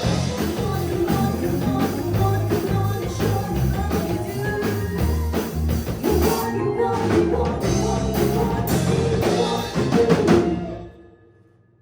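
Live band (drum kit, bass guitar, electric guitar and piano) playing the closing bars of a pop song, the music stopping about ten and a half seconds in and dying away.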